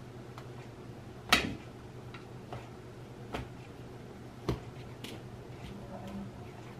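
Stretched pizza dough set down onto a floured metal pizza pan, with one sharp knock about a second in, then a few lighter knocks and taps as fingers press the dough out against the pan.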